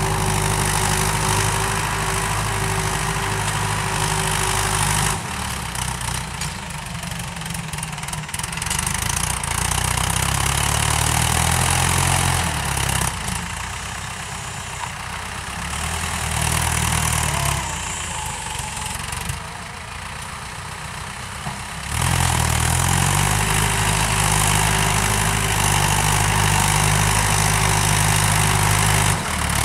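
Mahindra Arjun Novo 605 tractor's four-cylinder diesel engine running steadily while it pulls a tine cultivator through ploughed soil. Through the middle stretch the sound is quieter and the engine note rises and falls. About two-thirds of the way in it returns to a steady, louder run.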